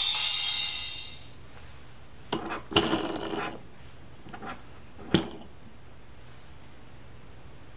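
A sound book's electronic sound chip playing the tail of a tinny tune, which stops about a second in. Then clicking and rubbing as a hand handles the board book at its wheel, with one sharp click about five seconds in.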